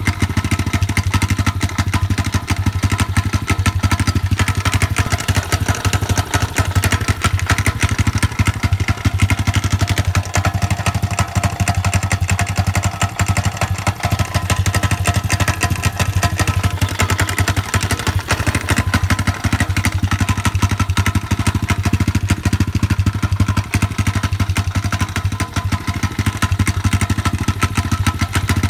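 SSR 125cc dirt bike's single-cylinder four-stroke engine idling steadily at an even pitch, with a knocking noise in its running that the owner cannot trace and that does not affect how the bike runs.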